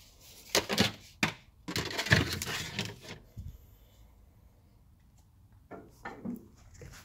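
Rustling and scraping handling noise in a few short bursts, with a sharp knock about a second in and the longest burst, about a second and a half, in the middle.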